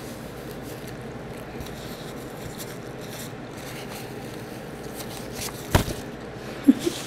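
Paper napkin rustling faintly as a mouth is wiped, over steady room noise. A sharp knock near the end is the loudest sound, followed by a brief low-pitched sound.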